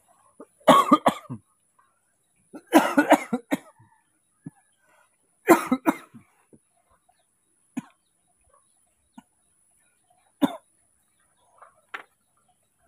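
A man coughing in several short fits, the longest about three seconds in, with a couple of single coughs near the end.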